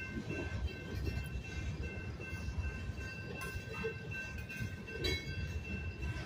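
Freight train's covered hopper cars rolling slowly past: a steady low wheel rumble with a few clanks, about three and a half and five seconds in. A grade-crossing bell rings steadily over it.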